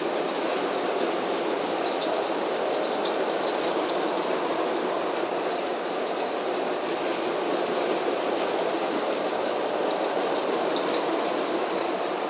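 Lego toy train running around a loop of plastic track: a steady whir and rattle from its small electric motor and plastic wheels, with faint scattered clicks.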